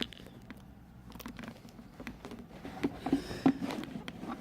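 Scattered small clicks, taps and rustles of hands moving objects around on a workbench, sparse at first and busier in the second half, with one sharper knock a little after halfway.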